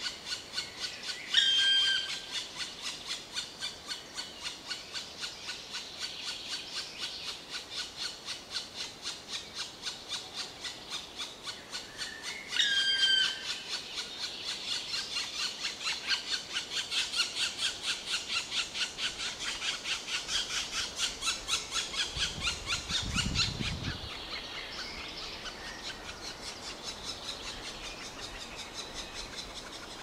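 Black woodpecker nestlings begging from inside the nest hole: a steady, fast, rhythmic churr of about three calls a second. Two louder squealing calls cut in, about a second in and again about eleven seconds later. A brief low rumble comes about two-thirds of the way through.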